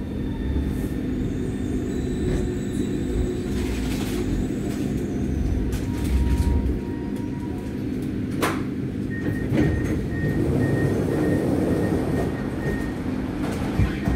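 Driverless Milan Metro Line 5 train heard from inside, running slowly into a station and stopping: a steady electric hum over low rail rumble. A sharp clack comes about eight and a half seconds in, then a high beeping tone that turns steady.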